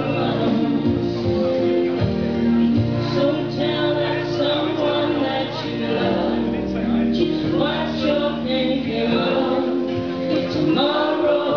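Two women singing together into one microphone over amplified backing music.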